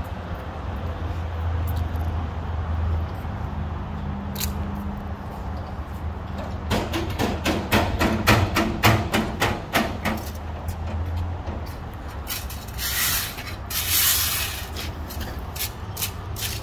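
Garbage truck engine running as a low steady hum. About seven seconds in comes a fast run of clicks or rattles, some five a second for about three seconds, and two bursts of hiss follow a few seconds later.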